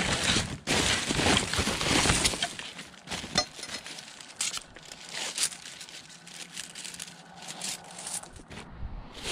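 Rummaging through rubbish in a dumpster: a dense run of crackling and clattering for the first couple of seconds, then scattered knocks and rattles of debris being shifted.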